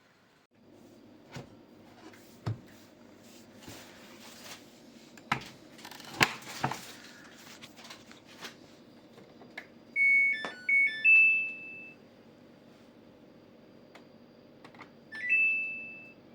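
Samsung washing machine control panel beeping: a quick group of short electronic beeps at two pitches about ten seconds in, and another short rising beep near the end. Scattered clicks and knocks come before them, over a steady low hum.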